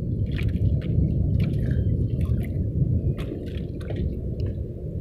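Water at the shoreline splashing and dripping in short irregular bursts over a steady low rumble.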